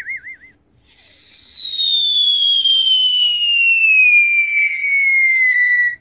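Cartoon falling whistle sound effect: one long whistle sliding steadily down in pitch for about five seconds, starting about a second in and cutting off at the end. It is the classic signal for something falling. Before it, the tail of a wobbling 'toing' spring effect dies away.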